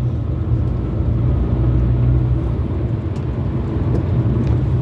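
Steady low rumble of a car being driven along a city street, heard from inside the cabin: engine and tyre noise.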